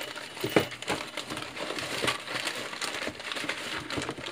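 Rustling, crinkling and light clattering of decorations being handled, with a sharp knock about half a second in.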